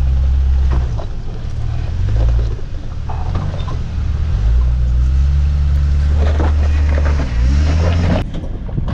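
Jeep engine working at low revs as the Jeep crawls up a rocky ledge. The revs hold, then drop and pick up again in short throttle pushes, with a rising rev near the end.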